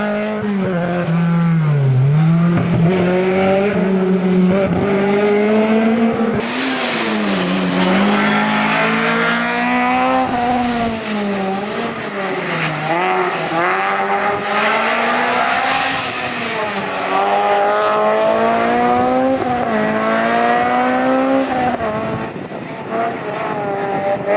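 Historic rally car engine driven hard on a special stage, its revs climbing and dropping sharply again and again through gear changes and braking for corners.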